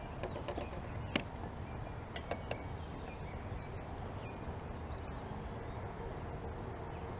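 Quiet outdoor background on open water: a steady low rumble, one sharp click about a second in, a couple of lighter ticks a little later, and a few faint bird chirps.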